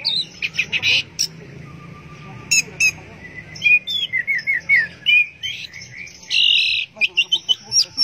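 Orange-headed thrush singing: a varied run of high chirps and whistled glides, with a quick series of falling notes about four seconds in and a harsh, held buzzy note near the seventh second, followed by rapid chirps.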